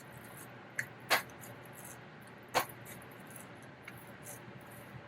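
A few short, sharp, wet clicks and smacks of hands shaping raw ground sirloin into burger patties, the loudest a little after one second and again at about two and a half seconds.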